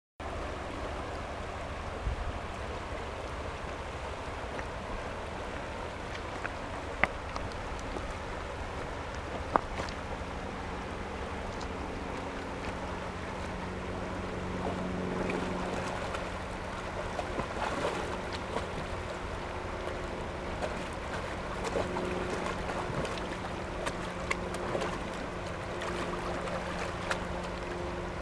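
Shallow river running over a rocky bed, with the splashing of a Bouvier des Flandres wading through it. Short sharp splashes and clicks come now and then, more often in the second half. A faint low steady hum comes in about ten seconds in.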